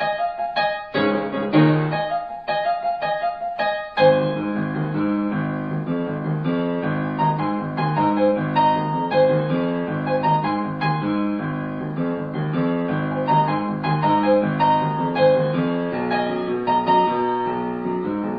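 Background piano music. Short, separated chords give way about four seconds in to fuller, more continuous playing.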